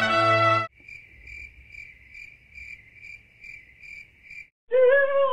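A cricket chirping steadily, about two to three short chirps a second, after a brass fanfare cuts off just under a second in. A voice comes in near the end.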